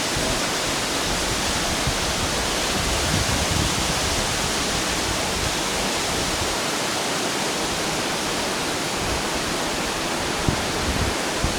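Waterfall in a desert wadi (Wadi Hidan), its water falling with a steady, even rush.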